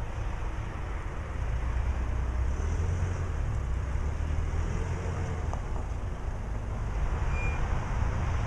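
Low steady rumble of an aircraft tow tractor's engine pulling a jet slowly across the ramp.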